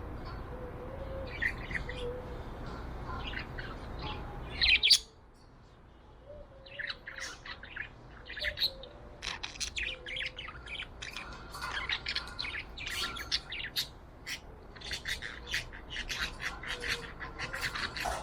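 Pet budgerigar chirping and warbling in many short, quick chirps, with one loud call about five seconds in. A low background rumble under the first few seconds stops abruptly just after that call.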